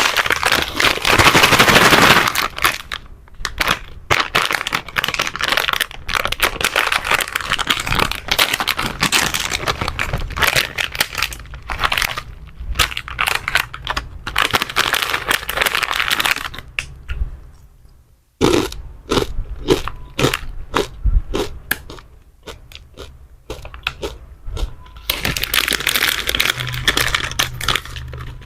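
Plastic snack wrappers crinkling, crackling and tearing as candy packs are unboxed and opened. There are many sharp crackles, longer stretches of rustling near the start and near the end, and a brief pause about two-thirds of the way through.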